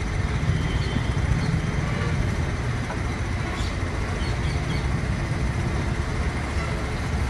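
Mobile crane's diesel engine running steadily with a low rumble.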